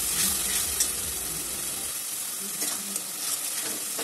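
Onion and tomato masala paste sizzling steadily in hot oil in a metal kadai while a metal spatula stirs it and scrapes across the pan, with a few sharper scrapes.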